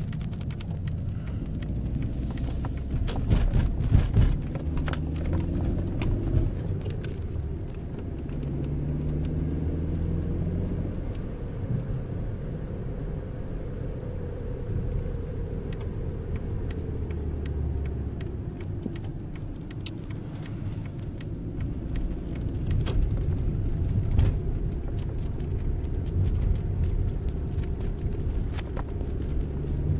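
Volkswagen Polo 6N2 driving, heard from inside the cabin: a steady low engine and road drone whose engine note rises and falls in pitch with speed. A few sharp knocks come about three to five seconds in.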